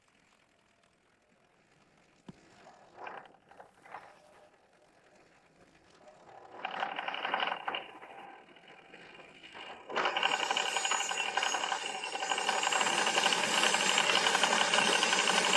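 Scattered mechanical clicks and a short whir, then a small motor and gears start abruptly about two-thirds of the way in and run steadily.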